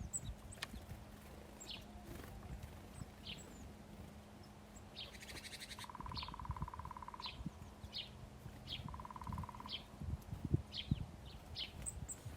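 Small birds chirping: a string of short, falling high chirps about every half second to a second, with a rapid, lower ticking trill twice in the middle, over faint low knocks and rumble.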